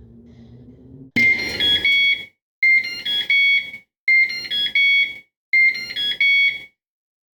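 Microwave oven's end-of-cycle beeper going off: a short run of high beeps, repeated four times about a second and a half apart, signalling that the cooking time has finished.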